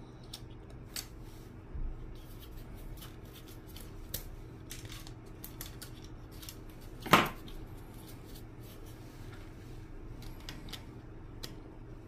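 A hand tool cutting thin plastic speaker housing: scattered small snips and clicks, with one louder snap about seven seconds in.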